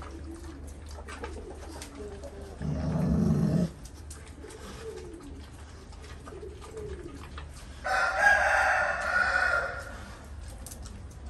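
Pigeons cooing, soft rising-and-falling calls repeated every second or so, with a loud low call about three seconds in and a louder call about two seconds long near the end.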